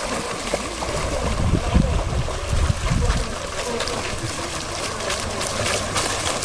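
Water splashing and trickling, with low rumbling about one and a half to three seconds in.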